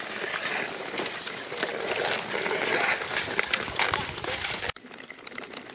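Skate blades scraping on natural ice and pole tips clicking against it as a group of tour skaters shuffles about. It drops abruptly to quieter scraping about three-quarters of the way through.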